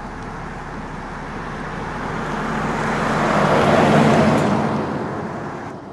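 Oncoming van passing close by, its tyre and engine noise swelling to a peak about four seconds in and then fading, over the steady road noise of the moving car. The sound cuts off abruptly near the end.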